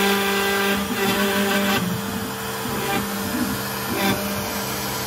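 Shapeoko 4 CNC router spindle running steadily while its V-bit cuts grooves in oak, a steady motor whine with a brighter, higher whine that comes and goes as the cut goes on.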